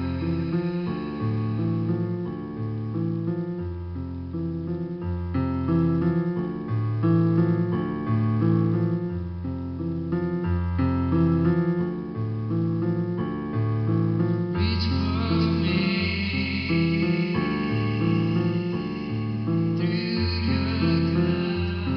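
Slow instrumental music led by a keyboard, playing held chords over bass notes that change about once a second. A brighter high layer comes in about two-thirds of the way through and drops out shortly before the end.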